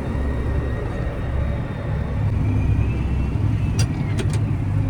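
Diesel engine of a John Deere 8235R tractor running in a steady low drone, heard from inside the cab while it pulls the grain cart across the field, with a few sharp clicks about four seconds in.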